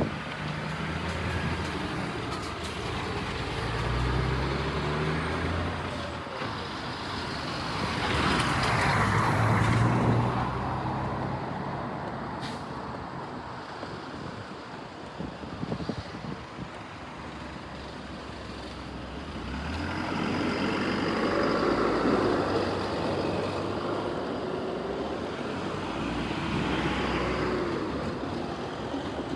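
Road traffic: several motor vehicles passing, their engines swelling and fading about four times.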